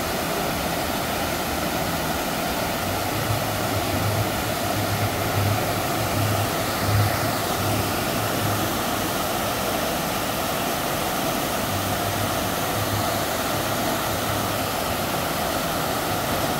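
Steady rushing water from a water park's falls and flowing channels, with a low hum that comes and goes underneath.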